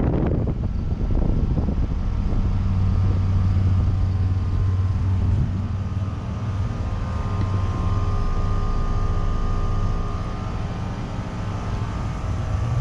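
A 2019 Trane XR14 3-ton central air conditioner's outdoor unit running just after start-up: a steady low hum from its Alliance scroll compressor under the even whoosh of the condenser fan, pretty quiet overall. A faint high tone runs over it and is strongest about halfway through.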